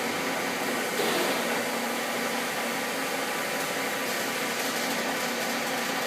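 Gisholt 3L saddle-type turret lathe with its 30 hp main motor running the spindle in the high speed range: a steady machine hum with faint whining tones from the drive. About a second in it gets slightly louder and the tones shift.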